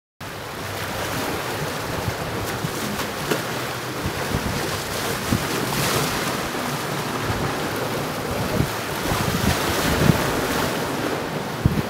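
Choppy sea waves washing and splashing, with wind buffeting the microphone in short gusts.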